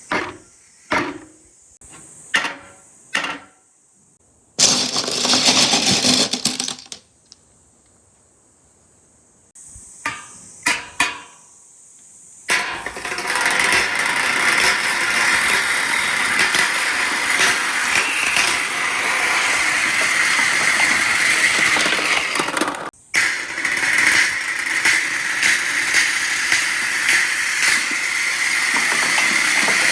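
Marbles clattering and rolling on a marble run track: a few sharp clicks and knocks, a short rolling rush, then from about twelve seconds in a continuous loud rolling rumble that breaks off briefly near the end.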